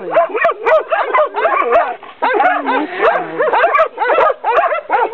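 Several dogs barking at once: a continuous, overlapping chorus of short barks and yaps with hardly a break.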